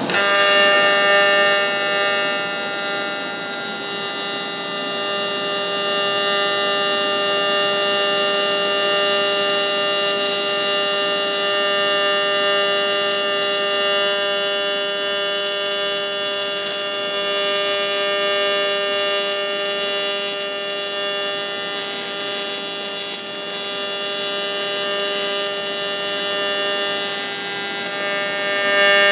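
Welding arc buzzing steadily on the aluminum throwout-bearing stub of a 2008 Subaru Legacy five-speed manual transmission, laying the last section of the weld. The arc is struck at the start, holds one steady pitched buzz with a hiss over it, and is broken off sharply at the end.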